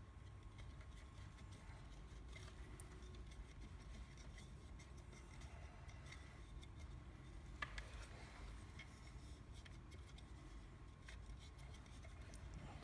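Near silence: a low steady room rumble with a few faint clicks and rubbing from small parts being handled, and one sharper click a little past halfway.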